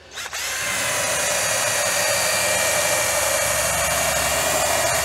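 Cordless drill spinning a wire wheel against a metal entry door, scouring old paint out of the panel grooves down to bare metal. It makes a steady motor whine over a harsh, even scraping hiss, starting a moment in.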